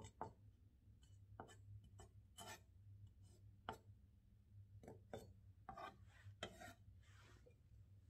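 Chef's knife julienning cucumber peel on a wooden cutting board: faint, irregular knocks of the blade against the board, with a longer scraping sound about six to seven seconds in.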